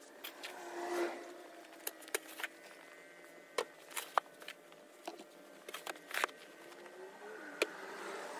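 Snow shovelling: sharp knocks and scrapes of a plastic snow shovel, with a scraping, whooshing swell about a second in as a load of snow is flung off the blade. A faint steady hum lies underneath.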